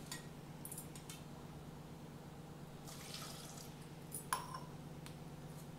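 Milk being poured into an aluminium pressure cooker of cooked moong dal: a faint liquid splash about three seconds in, then a single light clink, over a low steady hum.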